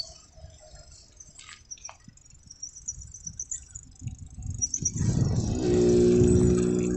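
A motor vehicle's engine approaching: a steady low hum that grows louder over the last two seconds, after a quieter stretch with a few light clicks.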